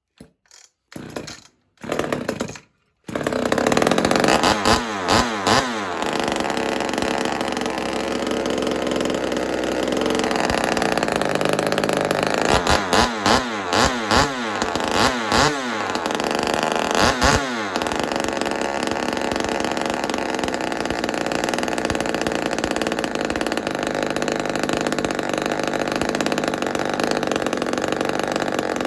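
Ported Homelite XL-76 two-stroke chainsaw with an open stack muffler on its first start: a few short sputters in the first couple of seconds, then it catches about three seconds in and keeps running. It is revved up and down in quick throttle blips in two bunches, then settles into steady running.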